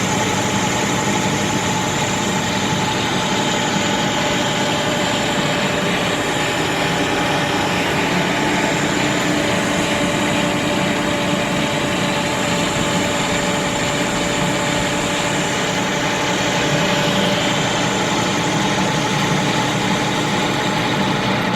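Victor 1640 manual lathe running steadily, a constant mechanical hum with several steady whining tones and no change in speed.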